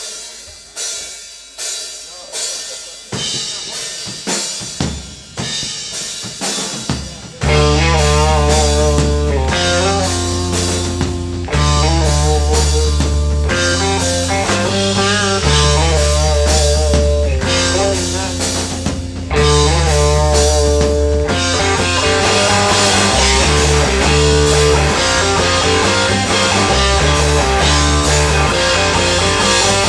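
Rock band playing live. It opens with a drum intro of snare and rimshot hits that builds for about seven seconds, then the bass and the rest of the band come in loud with a driving groove.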